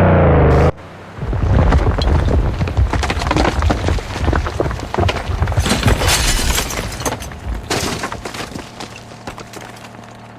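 A brief loud pitched tone at the very start, then a dense run of cracking and crunching, many small impacts one after another, fading over the last couple of seconds.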